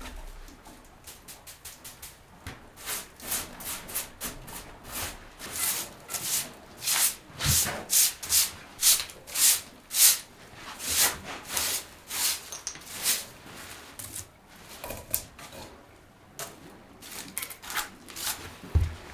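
Rhythmic scraping strokes, about two a second. They are soft at first, strongest through the middle, and fade out toward the end.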